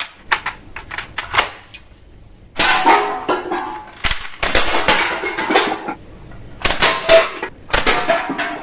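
Toy guns going off: a few sharp clicks, then four bursts of rattling gunshot sounds, each about a second long.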